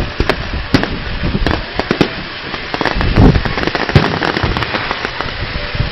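Display fireworks exploding: an irregular run of sharp bangs over continual crackling, with the loudest reports about three and four seconds in.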